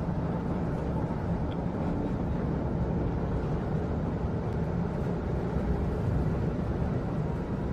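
Steady low rumble inside a moving train carriage, even and unbroken.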